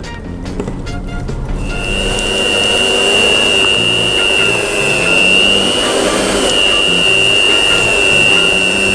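A spatula scrapes and knocks against a plate and a steel mixing bowl. About two seconds in, an electric stand mixer starts and runs steadily with a high motor whine, beating a thick cake batter full of nuts and dried fruit.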